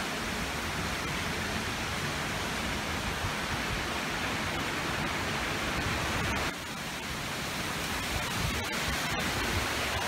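Typhoon wind and heavy rain: a steady rushing hiss, with wind rumbling on the microphone. It dips slightly about six and a half seconds in.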